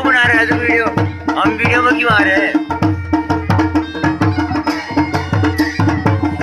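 Kumaoni wedding band music: a damau kettle drum and other drums beaten in a fast, steady rhythm. Over the drums run a steady drone and, in the first half, a wavering high melody line.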